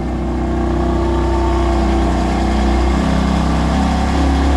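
A motor running with a steady low hum and a few steady tones above it, its tone shifting slightly about three seconds in.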